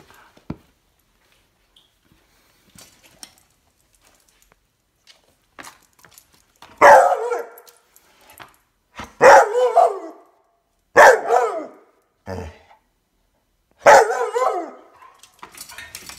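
Pitbull puppy barking behind a baby gate, angry at being shut in. After a quiet start come four loud, drawn-out barks a couple of seconds apart, with a shorter, fainter one between the third and fourth.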